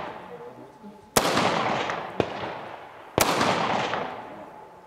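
Rifle shots from a semi-automatic AR-style rifle on an outdoor range: two shots about two seconds apart, each followed by a long fading echo. A fainter sharp crack falls between them.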